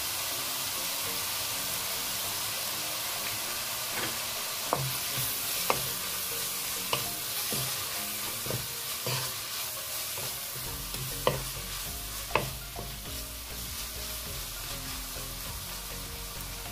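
Minced meat and dried mushrooms sizzling in a nonstick wok as a wooden spatula stirs them. From about four seconds in there are scattered sharp knocks of the spatula against the pan, the loudest near the middle and about three-quarters of the way through.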